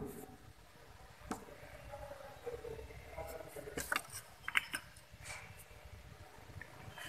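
A few faint clicks and knocks from a gloved hand handling a benchtop Spectronic spectrophotometer, touching its knobs and sample-compartment lid. The clicks come singly about a second in and in a short cluster around the middle.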